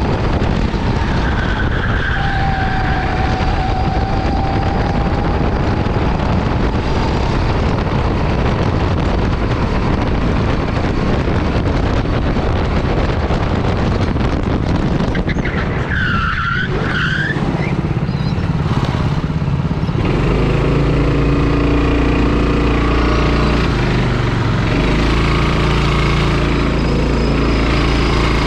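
Go-kart engine running hard on track amid heavy wind and road noise, with a short tire squeal about two seconds in and another about sixteen seconds in. From about twenty seconds in the engine settles into a steadier, lower drone.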